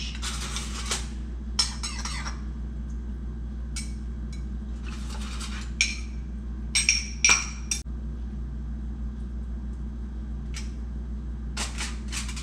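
A metal spoon scraping and clinking against a small bowl as sauce is spooned out over fish in foil: scattered short scrapes and taps, over a steady low hum.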